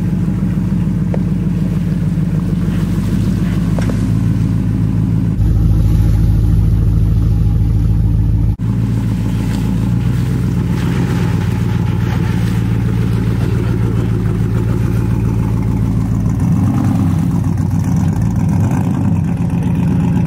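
Chevrolet Silverado Z71 pickup's engine running at low revs as the truck crawls over muddy ground, with the revs rising and falling near the end. The sound jumps abruptly about five seconds in and again about three seconds later.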